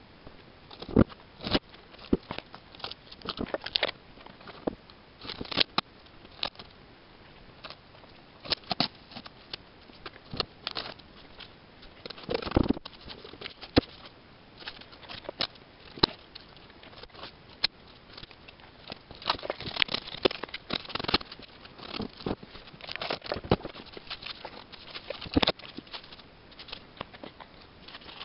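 Painter's tape being peeled off a painted cornhole board: irregular crackling rips and sharp clicks, some short snaps and some drawn-out tears lasting about a second, with busier stretches of peeling about halfway through and again about two thirds of the way through.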